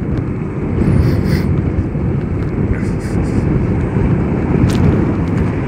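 Wind rushing over the microphone, with tyre and road noise, from a Zero DSR electric motorcycle on the move; the rumble swells in the first second as the bike gathers speed.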